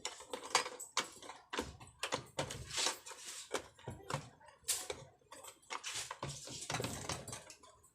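Irregular clicks, knocks and short scraping sounds of tools and parts being handled while repairing a bicycle, with no steady rhythm.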